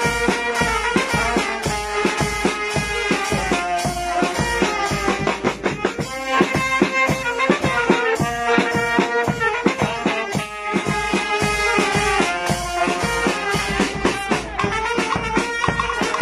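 Brass band playing a lively dance tune: saxophone and brass melody over a steady drum beat.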